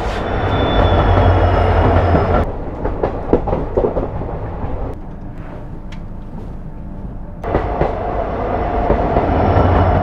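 Passenger train running on the rails, a loud rumble with the wheels clattering over the track. The sound drops abruptly about two and a half seconds in, with a few scattered knocks, and comes back up just as abruptly about seven and a half seconds in.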